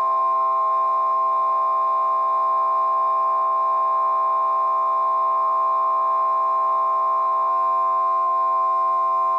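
Harmonica vocoder sound effect: a sustained electronic chord of steady tones, with one strong tone standing out on top. About seven and a half seconds in, the lower notes change to a new set while the top tone holds.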